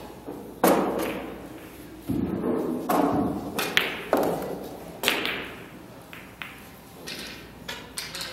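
Pool balls and cue on a pool table: cue tips striking the cue ball and balls clacking into one another and the cushions, a series of sharp knocks, each ringing briefly in a large hall.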